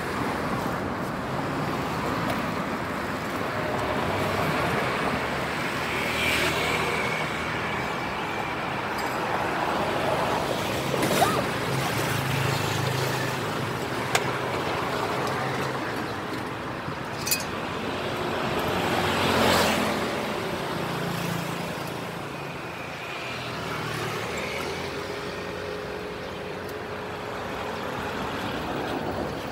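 Roadside traffic: a steady hum of passing vehicles, with one vehicle swelling past about two-thirds of the way through and a few short sharp knocks in the middle.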